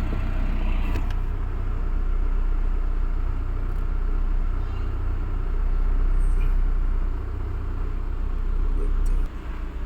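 Steady low rumble of a car running, its level drops suddenly about nine seconds in.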